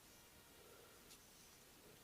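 Near silence: faint room hiss with one soft tick about a second in.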